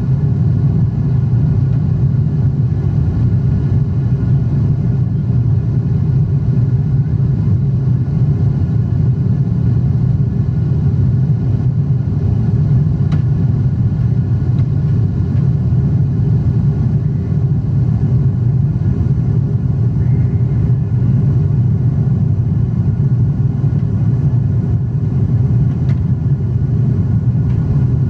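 Steady cabin roar inside a Boeing 777-300 climbing after takeoff: the engines and rushing air make a loud, even, deep rumble.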